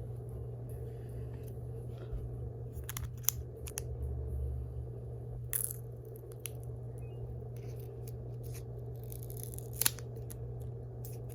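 Handling of Apple AirPods 4 packaging: scattered clicks, light tearing and rustling of the paper and cardboard as the case is taken out, with a sharp click about ten seconds in. A steady low hum runs underneath.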